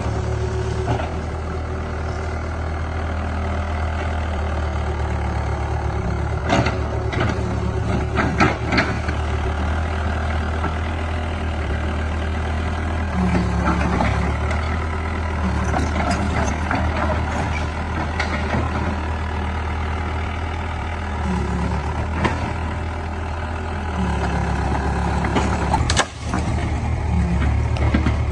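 Heavy diesel engine of a logging truck or excavator running steadily, its note stepping up and down a few times as the load changes. Scattered sharp clanks and knocks sound over it.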